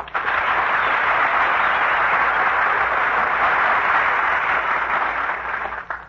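Studio audience applauding steadily, greeting the performers as they take over from the announcer, then dying away near the end; heard through an old radio broadcast recording that cuts off the high end.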